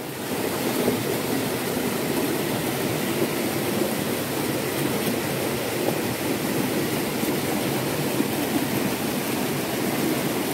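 Small rocky stream running over stones: a steady rushing noise with no let-up.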